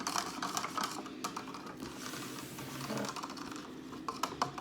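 A utensil stirring borax into water in a container, making rapid, irregular clicks against its sides, busiest in the first couple of seconds and again near the end.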